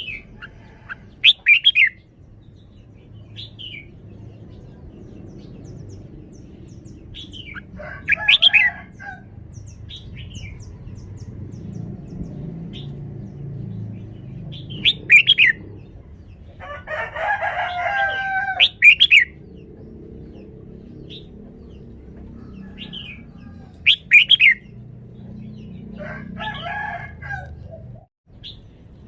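Red-whiskered bulbul singing short, bright song phrases every few seconds, with one longer phrase past the middle, over a steady low background rumble.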